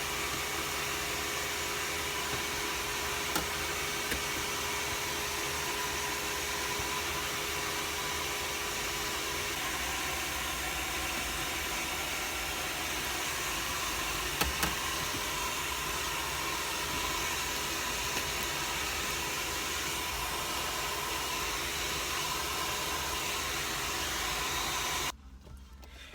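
Steady hiss with a faint hum and a few light clicks, cutting off abruptly about a second before the end.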